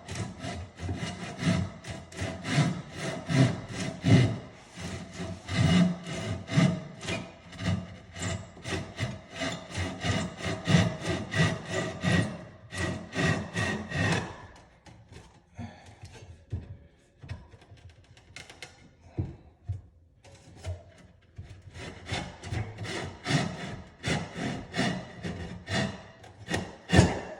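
Irwin finish saw, a fine-toothed hand saw, cutting through a wooden cabinet face-frame stile and its joining pegs in quick back-and-forth strokes. The sawing slows and quietens for several seconds about halfway through, then resumes steadily.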